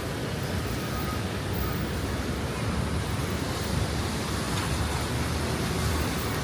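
Steady city street traffic noise: a constant low rumble of passing vehicles with an even hiss over it.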